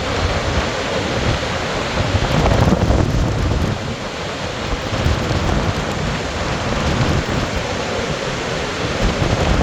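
Augrabies Falls on the Orange River in flood: a loud, steady rush of falling water with a deep rumble underneath, swelling slightly about two to three seconds in.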